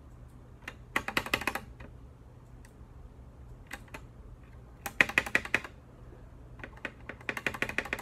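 Space bar of a GK64X mechanical keyboard with lubed and filmed Gateron Milky Yellow switches being pressed rapidly, clacking in three quick flurries of presses with a few single clicks between them.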